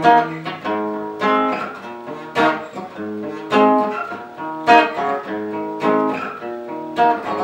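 Acoustic guitar strummed in a steady rhythm, chords ringing on between accented strums that fall about once a second.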